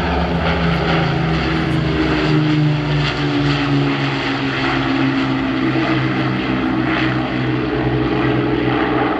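Avro Lancaster bomber flying past, its four Rolls-Royce Merlin piston engines running steadily, with the engine note dropping slowly in pitch as it goes by.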